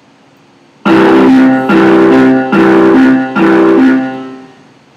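Software MIDI playback of one bar of a broken C major chord (C, E, G) on a synthesized instrument: four beats of notes, each about 0.85 s apart, starting about a second in and dying away near the end.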